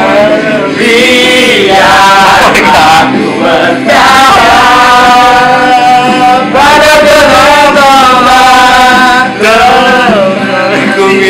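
Several young men singing loudly together to a strummed acoustic guitar, in long held notes broken by short gaps between phrases.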